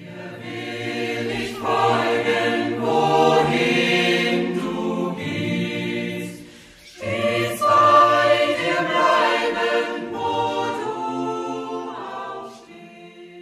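Intro music of a choir singing in two long phrases, with a brief break about halfway through, dying away near the end.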